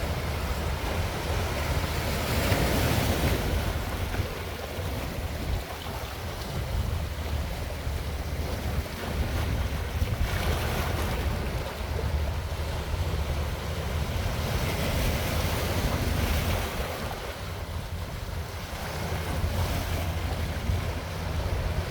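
Sea waves breaking and washing in, three swells of rushing hiss a few seconds apart, over a steady low rumble of wind buffeting the microphone.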